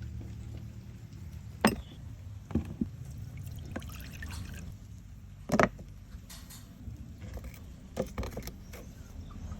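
Dishes and utensils clinking and tapping about six times, sharpest twice, over a low steady hum.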